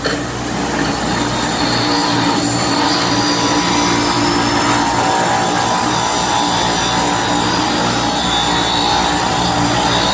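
Bench grinder with an 80-grit wheel running steadily while a metal casting is held against the wheel, grinding off casting flash: a continuous grinding hiss over a steady motor hum.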